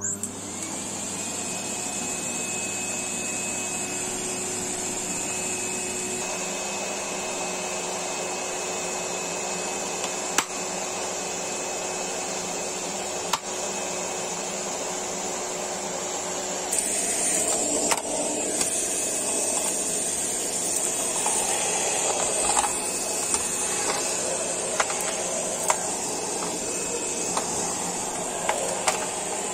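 Sharp EC-8305 vacuum cleaner switching on suddenly and running steadily with a whining motor over a rushing air hiss. About two thirds of the way in its sound shifts, and after that sharp clicks come now and then.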